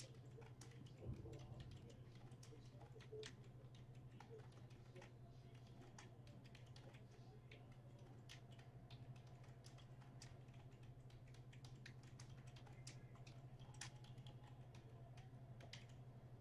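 Faint, irregular clicking of typing on a computer keyboard, with a soft bump about a second in, over a steady low electrical hum.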